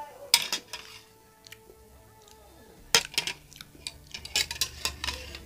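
Metal spoon clinking and scraping against a ceramic bowl while noodle soup is scooped up: one sharp clink about a third of a second in, then a run of clinks from about three seconds in.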